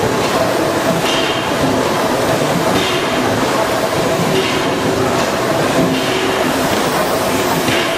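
Horizontal stationary steam engine running, with a steady hiss of steam and a beat from the engine's stroke returning about every one and a half seconds.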